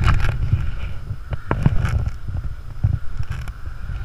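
Wind buffeting an action camera's microphone as a low, uneven rumble, with a few short knocks from the camera being handled.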